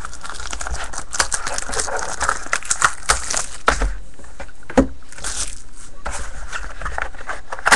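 Crinkling and irregular clicking of packaging and trading cards being handled.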